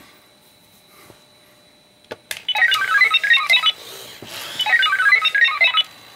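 Mr Clock Radio robot alarm clock giving out electronic beeping sound effects as its demo mode starts: a couple of clicks about two seconds in, then two runs of rapid beeps hopping up and down in pitch, each lasting a little over a second.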